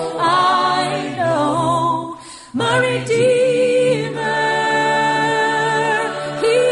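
Christian pop song: singing with long held notes over backing music, breaking off briefly about two seconds in.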